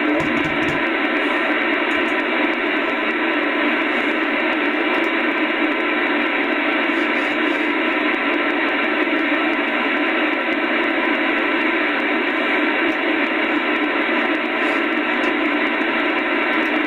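Steady hiss of band noise and static from a shortwave transceiver's receiver in single-sideband mode, its audio cut off below about 200 Hz and above about 4 kHz, with faint steady tones in the hiss and no readable voice. A brief low thump comes right at the start.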